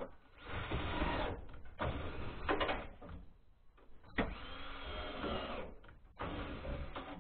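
Cordless drill-driver whirring in four short bursts, its motor speeding up and slowing down in the longest burst.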